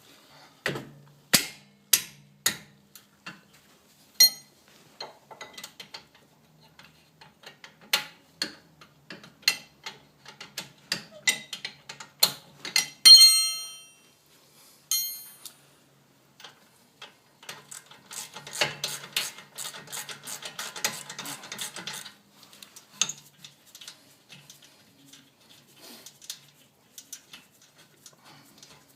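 Metal tools and brake parts clinking and knocking as they are handled, with one loud ringing clang about halfway through. Later comes a run of rapid rattling clicks lasting about four seconds.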